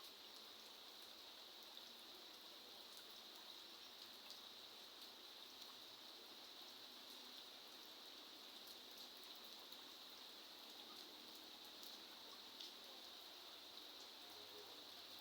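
Faint steady rain: an even hiss with many scattered single drops clicking through it.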